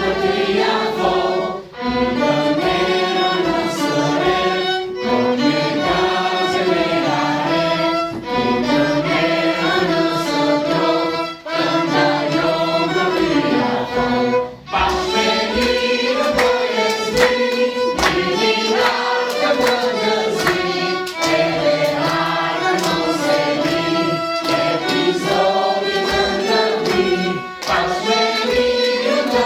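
Choir singing a hymn with instrumental accompaniment that includes strings.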